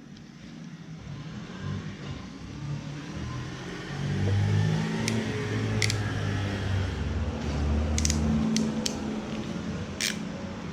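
A vehicle engine running nearby, a low drone that grows louder through the first few seconds and shifts in pitch, with half a dozen sharp clicks in the second half.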